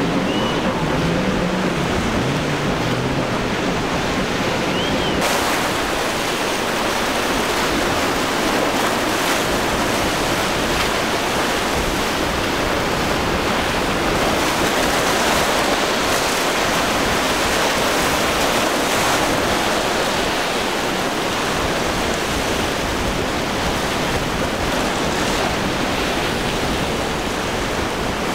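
Steady rush of breaking waves and surf in rough seas, with wind on the microphone.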